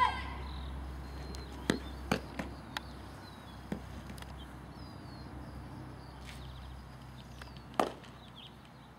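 Softballs smacking into leather fielding gloves during outfield throw-and-catch: a handful of sharp, separate pops a second or more apart, the loudest near the end.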